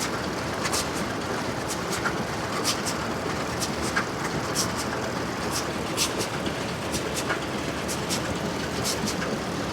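New Holland BR7060 round baler running at slow speed, driven by the tractor, with its chains and rollers turning in a steady clatter. Sharp clicks come about once or twice a second over the tractor engine's running.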